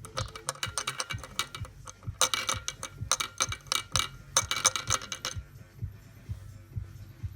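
Rapid metallic clicking and rattling in several bursts, over a steady low hum; the clicking stops a little over five seconds in.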